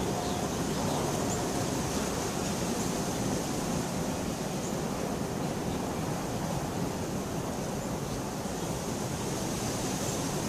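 Steady rain: an even, unbroken hiss with a full low body and a few faint ticks of drops on top.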